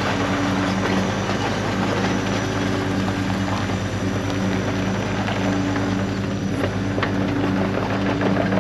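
Hyundai 60CR-9A mini excavator's diesel engine running steadily under load while its dozer blade pushes dirt and gravel back into a trench, with stones clattering.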